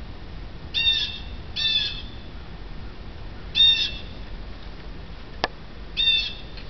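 A house cat chirping at birds it is watching, four short high chirps spread over several seconds, with a single sharp click between the last two.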